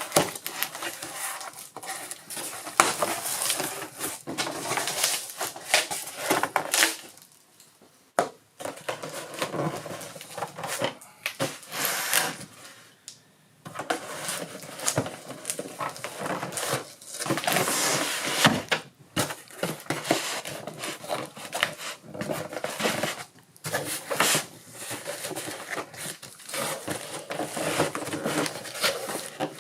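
Packaging being handled during an unboxing: irregular rustling and crinkling broken by many sharp clicks and knocks of hard parts, with two brief lulls.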